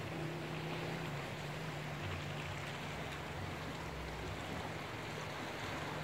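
Steady seaside background: an even wash of sea noise with a low, steady hum under it.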